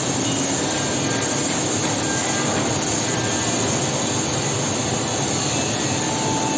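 Steady, even rushing roar of running woodworking-factory machinery, with a faint low hum under it.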